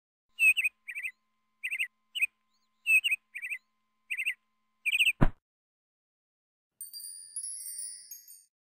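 Intro sound effect: a run of about ten short, high bird-like chirps, then a single sharp click just after five seconds, followed by a shimmering chime that fades near the end.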